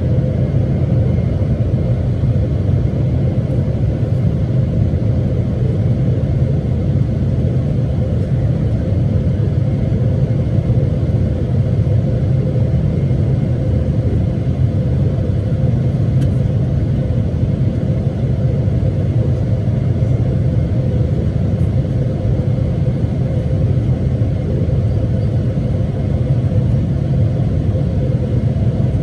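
Steady low rumble of a Boeing 777-300ER in flight: the noise of its GE90 engines and the airflow, with a faint steady hum running through it.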